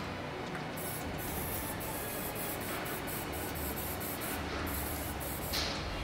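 Aerosol spray-paint can hissing in a run of short bursts as the cut end of a metal strut channel is touched up with paint, with a louder burst near the end.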